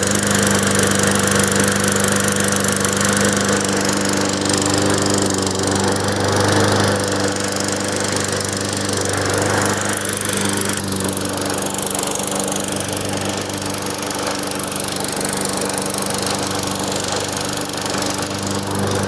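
Toro Recycler 21-inch walk-behind lawn mower's single-cylinder Briggs & Stratton engine running steadily at a constant speed on its first start, freshly filled with oil and gas.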